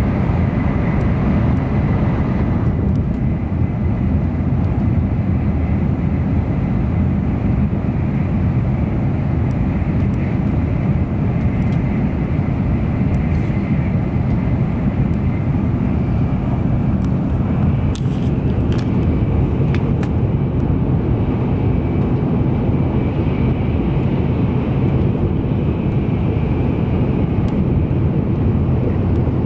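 Cabin noise inside an N700-series Shinkansen car running at high speed: a steady low rumble. A faint high steady tone fades about two and a half seconds in and returns near the end, and a few light clicks come about two-thirds of the way through.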